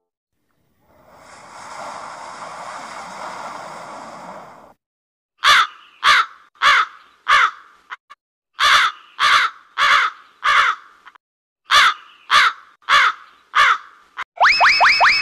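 Crow cawing in three runs of about five caws each, roughly two a second, after a few seconds of steady hiss-like noise. Near the end comes a quick series of short rising chirps.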